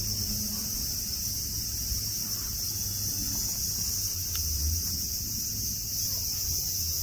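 Steady high-pitched chorus of summer cicadas, with a low rumble underneath.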